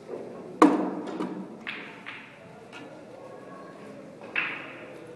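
Pool balls and cue clicking on a pool table. A loud sharp crack comes about half a second in, then a few lighter clicks, then another sharp click about four seconds in as the cue strikes the cue ball for a shot.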